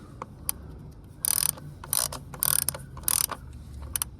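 Ratchet wrench clicking in four short bursts about half a second apart as it is swung back and forth, tightening a fastener that was started by hand on the V6 engine.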